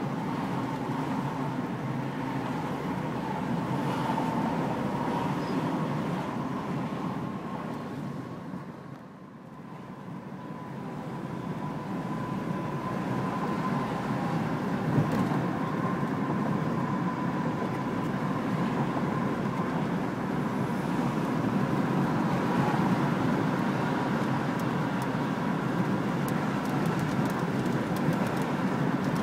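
Steady road noise of a car being driven, dipping about nine seconds in and building back up over the next few seconds.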